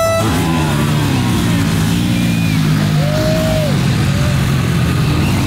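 Dirt bike engines running steadily. An air horn cuts off just as it begins.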